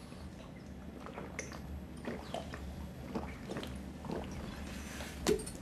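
Faint gulping and swallowing as two people drink from small bottles, with a few small clicks and one short louder sound near the end.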